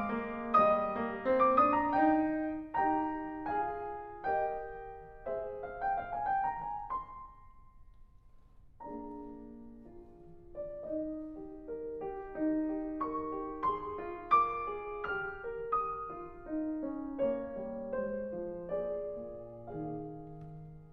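Background piano music: a gentle run of notes that rises, pauses briefly about eight seconds in, then starts again.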